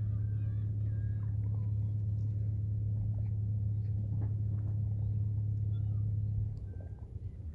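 An engine running with a steady low hum that drops away about six and a half seconds in, with faint short chirps above it.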